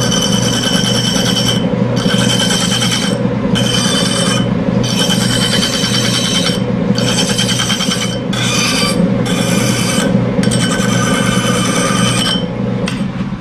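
Hand file scraping against the brazed-up teeth of a cast-iron gear turning in a metal lathe, deburring the rough tooth edges left by skimming. There are about eight strokes of a second or so each, some with a high ringing note, over the steady hum of the lathe running.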